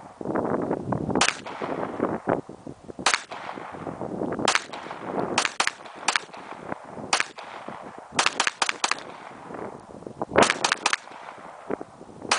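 Springfield 9mm semi-automatic pistol being fired about fourteen times at an uneven pace: single shots a second or more apart at first, then a pair, and later quick strings of four and of three shots.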